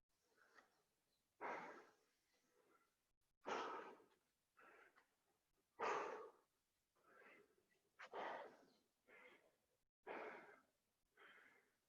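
A person breathing hard from exertion, with a loud breath about every two seconds and fainter breaths between.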